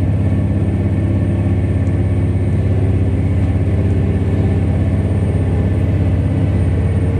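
KiHa 40-series diesel railcar's engine running with a steady low drone as the train moves off along the line, heard from inside the carriage.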